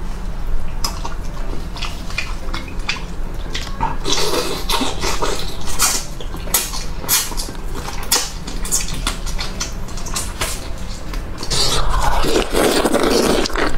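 Close-up wet eating sounds: sucking and slurping sauce-soaked braised meat off the bone, with many short lip smacks and chewing clicks, growing louder and denser near the end as he bites into a new piece.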